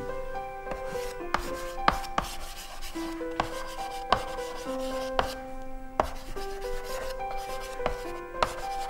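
Chalk writing on a blackboard: scratchy strokes with sharp taps scattered through, over soft background music with long held notes.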